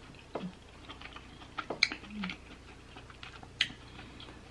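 Close-miked mouth sounds of eating king crab meat: sparse soft wet clicks and smacks from chewing, with a short closed-mouth hum about two seconds in.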